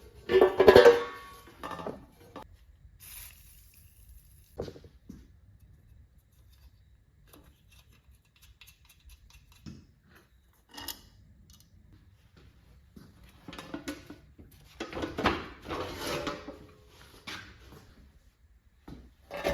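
Metal parts of an old bandsaw clinking and clattering as they are handled and set down during disassembly, with scattered knocks. Louder clusters come near the start and again in the last third.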